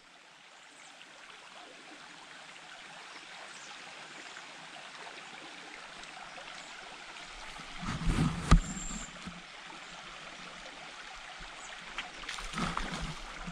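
Trout stream water running steadily, fading in over the first few seconds. A few low thumps come about eight seconds in and again about twelve seconds in.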